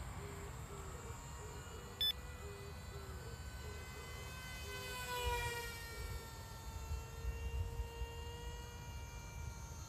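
Small high-revving brushless motor and propeller of a foam-board RC plane whining in flight. The whine's pitch drops as the plane passes by, about five seconds in. A brief sharp sound comes about two seconds in.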